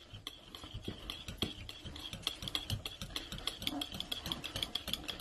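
Wire whisk beating egg yolk into yogurt in a glass bowl: rapid, irregular clicks and scrapes of the wires against the glass.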